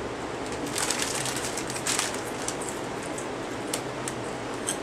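Zapp's Voodoo kettle-style potato chips crunching as several people chew, a few short sharp crackles over a steady background hiss. The chip bag crinkles near the end.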